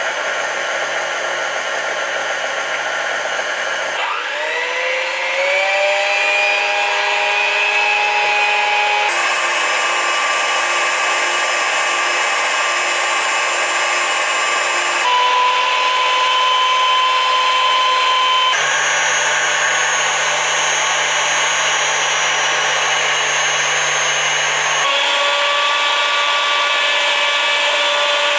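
Electric mixer motors running at different speeds: the Philips hand mixer and the KitchenAid Artisan stand mixer. It is a steady, noisy motor whine that steps to a new pitch every few seconds, with a rising whine as the motor speeds up about four seconds in.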